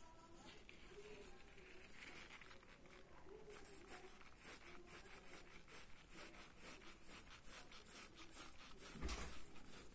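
Mechanical pencil lead scratching on paper in short, quick strokes, about three a second, with a louder knock near the end.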